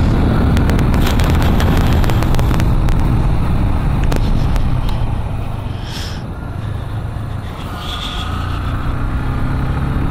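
Vehicle engine running with road and wind noise while driving; it eases off a little about halfway through and picks up again near the end.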